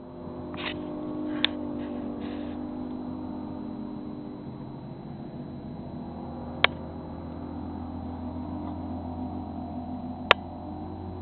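Distant Mercury 250 Pro XB V6 two-stroke racing outboard on a Cobra Viper 201 speedboat running flat out across open water, a steady drone that swells over the first second and then holds. Three sharp clicks stand out above it, about a second and a half in, near the middle and near the end.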